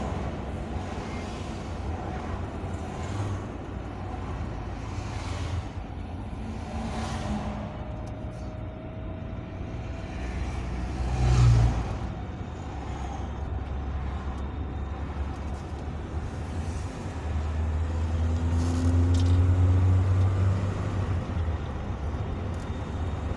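Steady engine and road noise heard from inside the cab of a moving vehicle on a highway. There is a brief loud swell about halfway through, and the rumble grows louder for a few seconds near the end.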